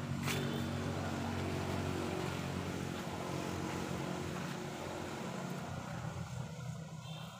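A motor engine running steadily with a low hum, fading away about six seconds in.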